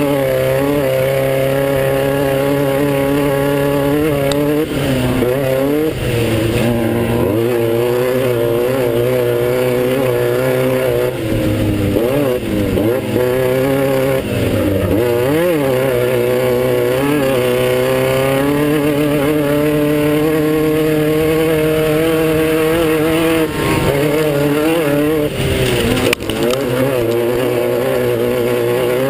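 Class 9 off-road race buggy's air-cooled VW engine running hard under load, its pitch rising and falling with throttle and gear changes. There is a short drop in level near the end.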